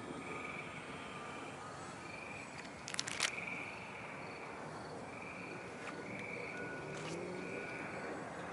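Evening chorus of calling insects: short trills repeating about once a second, with a quick burst of sharp clicks about three seconds in.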